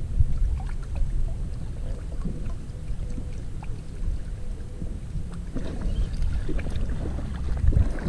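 Wind rumbling on the microphone in uneven gusts, with scattered faint ticks and small splashes over it.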